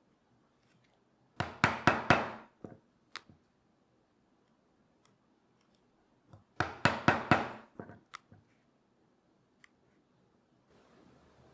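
Two quick runs of about five sharp clicks each, a few seconds apart, from a hand tool working the leather strap.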